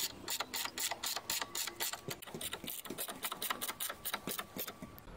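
Socket ratchet wrench clicking rapidly and evenly, about five clicks a second, as a bolt is driven in; the clicking stops just before the end.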